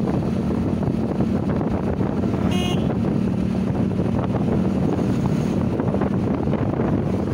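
Wind buffeting the microphone over the steady hum of a moving road vehicle, with a short, high horn toot about two and a half seconds in.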